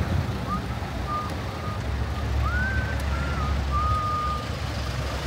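Low steady rumble of slow, stop-and-go rush-hour car traffic, over which a string of short, high whistle-like tones sounds, some rising and others held level, the longest near the end.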